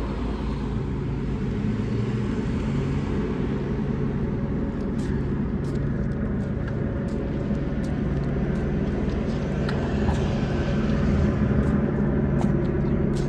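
Steady, even low engine drone with a hum running through it and a few faint clicks.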